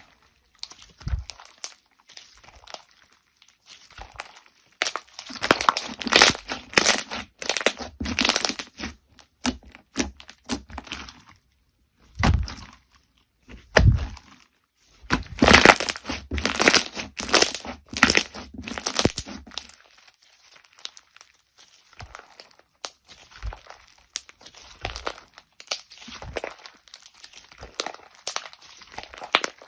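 Crunchy slime being squeezed, pressed and stretched by hand, giving dense runs of crackling and popping that come in waves, thickest in two stretches around the middle.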